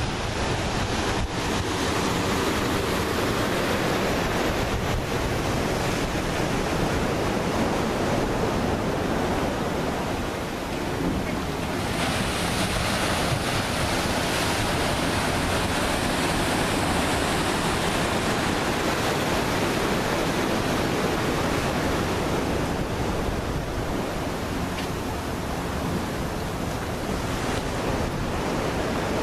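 Ocean surf washing and breaking, steady and continuous, with wind rumbling on the microphone. The hiss grows brighter for several seconds around the middle.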